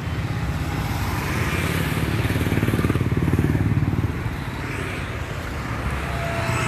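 Street traffic, with a motorcycle passing close by; its engine is loudest about two to four seconds in, then fades.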